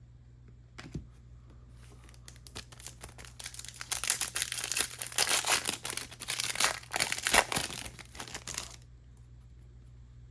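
Foil wrapper of a trading card pack being torn open and crinkled: a dense crackling that builds over a few seconds and stops abruptly near the end, after a single click about a second in.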